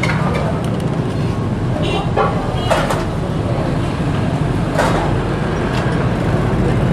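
Steady low rumble of street traffic with indistinct voices in the background, and a few short sharp clatters about two, three and five seconds in.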